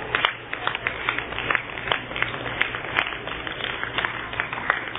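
Scattered hand clapping from a few spectators, irregular claps at about four or five a second, over the background noise of a large hall.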